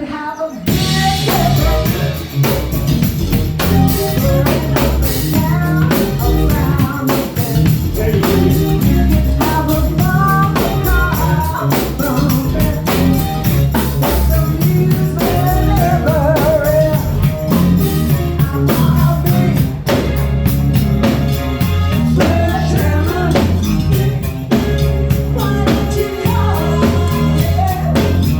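Pop song playing: a singer over a steady drum beat with tambourine and guitar.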